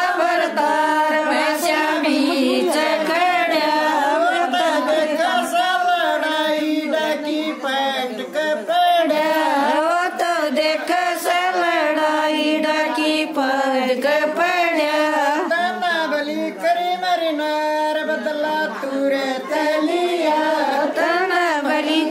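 A group of women singing a folk song together, unaccompanied, with a few scattered hand claps.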